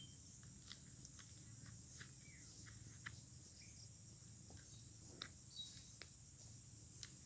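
Faint steady high-pitched insect drone, like crickets, with scattered soft clicks and a few faint bird chirps.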